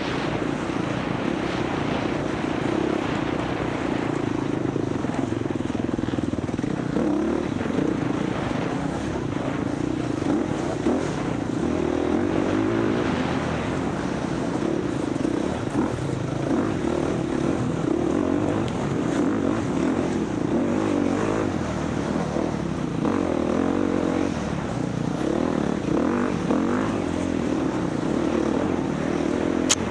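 Dirt bike's single-cylinder four-stroke engine running continuously under power while racing, its note wavering with the throttle.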